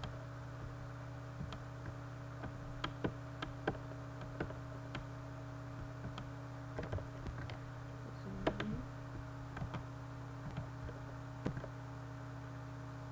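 Scattered clicks of a computer keyboard and mouse, irregular, about one or two a second, with a louder cluster about two-thirds of the way in, over a steady low electrical hum.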